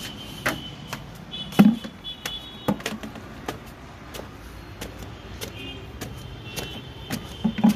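Footsteps and knocks of someone climbing concrete stairs with a bucket: irregular sharp knocks, the loudest about a second and a half in and again near the end, with short high squeaks now and then.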